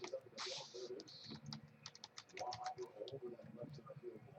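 Faint clicking and rustling of baseball cards being handled and flipped through, with a brief louder rustle about half a second in.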